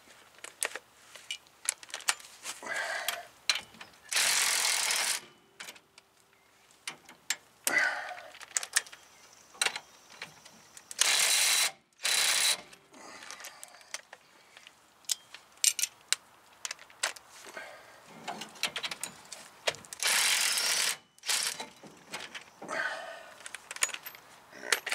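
Hand ratchet clicking and steel tools clinking while the front brake caliper bracket bolts are loosened. Three bursts of hiss, each about a second long, come at roughly four, eleven and twenty seconds in.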